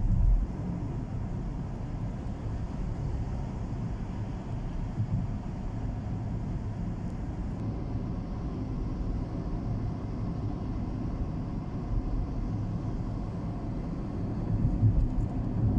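Steady low rumble of a car driving, the tyre and engine noise heard from inside the vehicle; it grows louder near the end.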